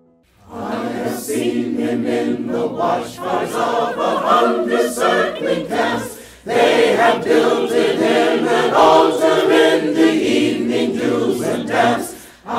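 A choir singing as a soundtrack. It stops briefly about six seconds in, comes back, and dips again near the end.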